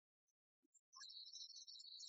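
Near silence, with faint high-pitched chirping from about a second in.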